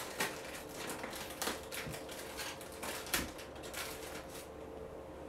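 Irregular light clicks and taps of small hard objects being handled, such as pebbles and shells. A few are louder than the rest, and they stop near the end.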